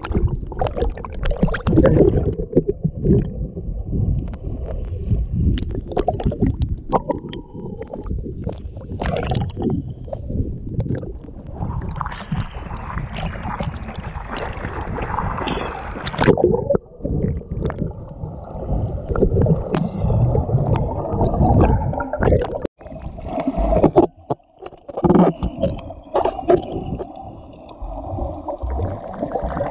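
Seawater sloshing and splashing over an action camera's waterproof housing as it bobs at the surface, with irregular knocks and gurgles. It turns more muffled and steady near the end as the camera goes under.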